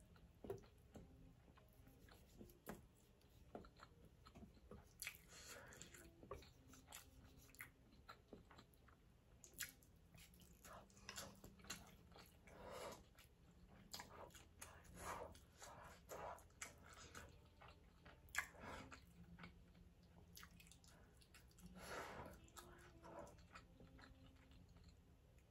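Faint close-up chewing of ramen noodles, with scattered small clicks and short eating noises.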